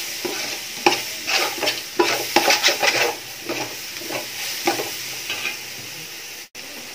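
Metal spatula scraping and stirring vegetables in a large metal pot, over the sizzle of stir-frying. The scrapes come in quick repeated strokes for the first five seconds or so, then give way to a steadier, quieter sizzle, with a brief cut-out near the end.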